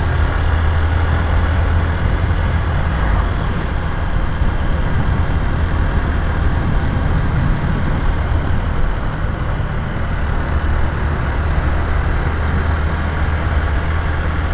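Honda Titan 150's single-cylinder four-stroke engine running steadily as the motorcycle is ridden, a low, even hum with no big revs.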